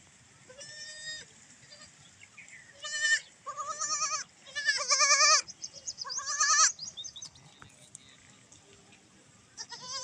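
Baby goats bleating: a run of about six high, quavering bleats, loudest and closest together in the middle, with one more near the end.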